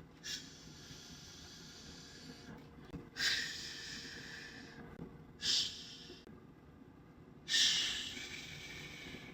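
A woman making whispered "shh" sounds close to the microphone, ASMR-style: four hisses, a short one at the start, a long one about three seconds in, another short one, and a long one near the end.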